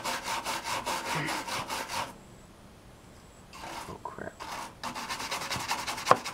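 Fast back-and-forth scrubbing on the plastic case of a 1991 Packard Bell Legend 386X computer, about five strokes a second, to rub off grime. The scrubbing stops about two seconds in and resumes briefly, then picks up again near the end with a few sharp clicks.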